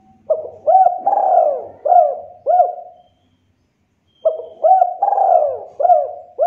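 Spotted dove cooing: two phrases of several hooked coo notes each, separated by a pause of about a second.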